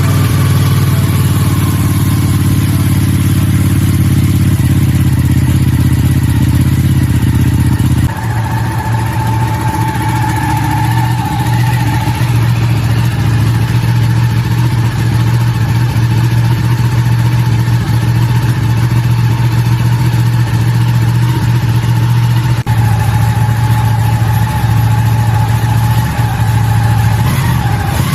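Ducati motorcycle engine running steadily just after starting. About eight seconds in its sound changes abruptly, and it then runs on at an even, unchanging speed.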